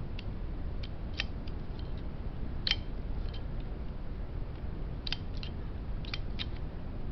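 Light clicks and taps of small metal parts as a Crosman 1377 air pistol is handled during reassembly: about a dozen scattered clicks, the sharpest a little under three seconds in, over a low steady hum.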